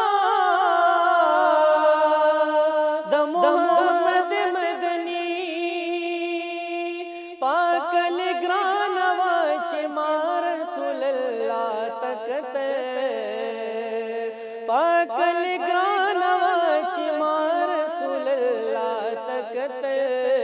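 A man singing a naat, a devotional song in praise of the Prophet, in long drawn-out, wavering phrases with a short break about seven seconds in.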